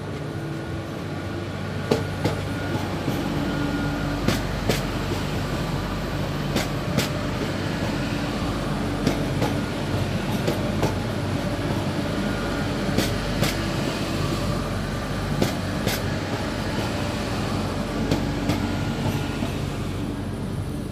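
An AGC regional train passing close by, with a steady low drone from its running gear and traction. Its wheels click over rail joints, the clicks mostly in close pairs every second or two as each bogie crosses.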